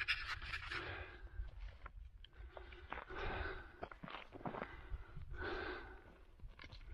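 Heavy breathing of a hiker climbing a steep slope, a breath about every second and a half, with scattered crunching footsteps on loose gravel.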